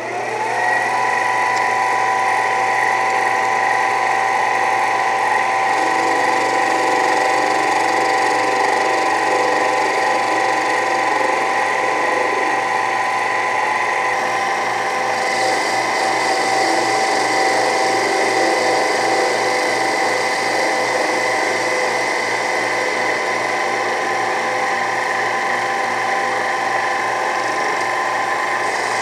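Mini lathe starting up and running steadily, its motor and drive whining on several steady tones that rise as the spindle comes up to speed. About halfway through a light hiss and a low pulsing join as the tool begins cutting the 6061 aluminium bar.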